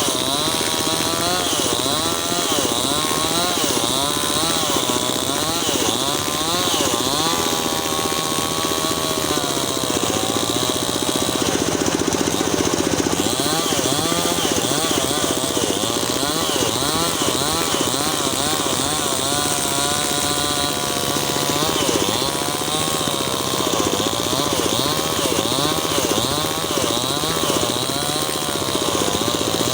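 Mini chainsaw running continuously as it cuts lengthwise into wood, its pitch dipping and rising over and over, about once a second.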